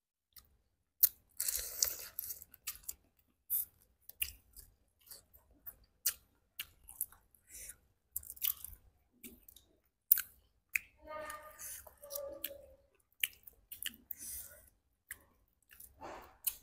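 Two people eating boiled shrimp and corn on the cob: chewing and biting, with irregular crunches and sharp clicks.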